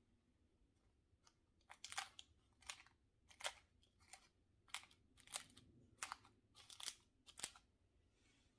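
Crisp baked phyllo pastry of pumpkin-filled pie triangles crackling as fingertips press on its flaky layers: a dozen or so faint, sharp crunches, the pastry's crispness heard.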